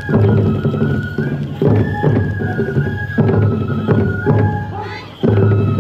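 Traditional tiger-dance festival music: a Japanese bamboo flute plays held notes over taiko drumming, in a short phrase that repeats every second and a half or so.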